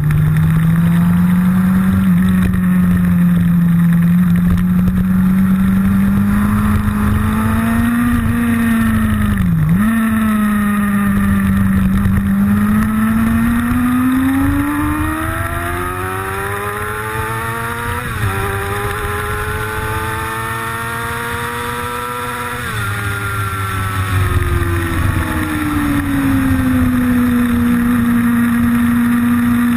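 Motorcycle engine heard from onboard at speed, its pitch slowly rising and falling with the throttle, broken by a few sharp drops and jumps in pitch.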